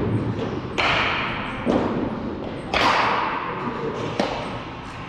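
Sharp knocks of baseballs being struck or caught, four in all, roughly a second apart, the first and third the loudest, echoing in a large hall.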